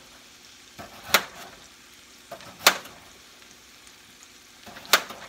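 A knife slicing through a raw potato, the blade clicking sharply on the stovetop three times as each slice goes through, about a second, nearly three seconds and five seconds in. Under it is a faint steady sizzle of chicken frying in a skillet.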